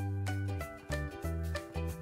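Upbeat background music with a bass line moving in short repeated notes.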